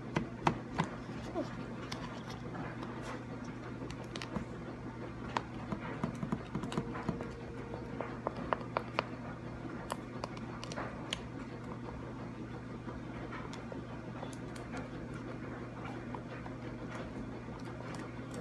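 Scattered sticky clicks and taps of homemade slime being stirred in a bowl, denser in the middle, over a steady low hum.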